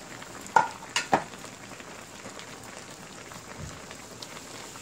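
Spicy braised chicken stew simmering in an open pan with a steady bubbling hiss, and a few sharp clicks, a metal ladle tapping the pan, around half a second to a second in.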